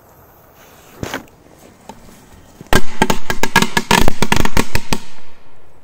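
A firecracker belt (a string of small firecrackers) going off. A single sharp crack comes about a second in, then near the middle a fast string of about twenty bangs over two seconds, which trails off.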